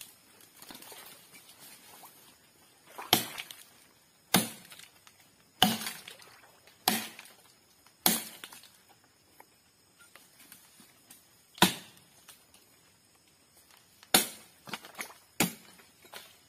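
Chopping blows of a blade biting into the trunk of a sago palm that is being felled: about eight sharp, separate strikes roughly a second and a bit apart, with a pause of a few seconds in the middle and some lighter knocks near the end.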